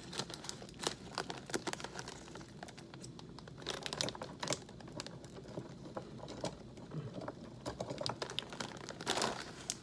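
Crinkly plastic snack bag of cheese puffs being handled and worked open by hand, giving a dense run of irregular crackles, with a longer rustle near the end.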